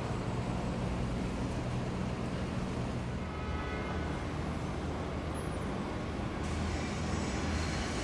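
Steady road traffic: cars, buses and shuttle vans running, a low engine rumble under a noisy wash, with a brighter hiss coming in about two-thirds of the way through.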